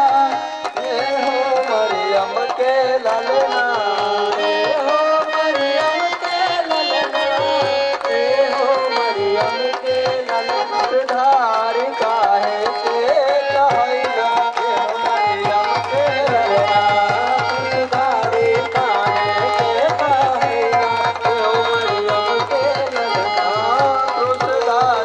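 A male voice sings a Bhojpuri Christian devotional song into a microphone over tabla accompaniment. The tabla's deep strokes come through more strongly about halfway through.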